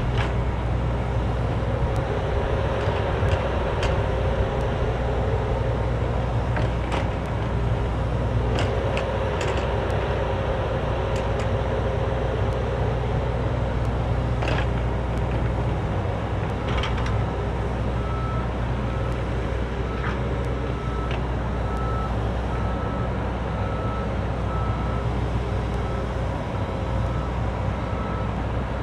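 Cat 304D mini excavator's diesel engine running steadily under load while backfilling, with scattered knocks and scrapes of the bucket working dirt. From a little over halfway in, a travel alarm beeps over and over at an even pace.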